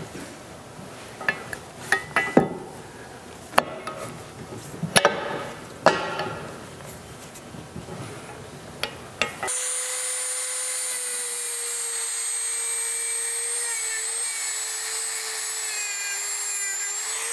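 Steel parts of a cast-iron arbor press clank and knock as the ram and pinion assembly is handled and worked loose. From about nine and a half seconds in, a small handheld grinder runs with a steady high whine, dipping slightly under load, as it grinds off a small burr that is stopping a part from sliding off its shaft.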